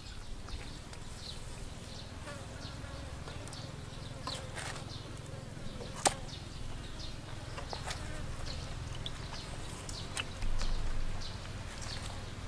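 A small raw shark being gutted by hand and knife on a wooden board: soft wet cutting and handling noises with a sharp click about six seconds in and a louder scrape near the end, over the steady buzz of flying insects.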